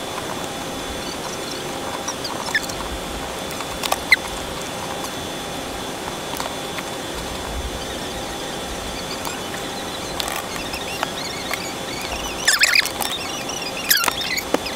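Steady background hiss with a few scattered clicks, most likely computer mouse clicks, and faint high squeaks. They bunch together about twelve and a half and fourteen seconds in.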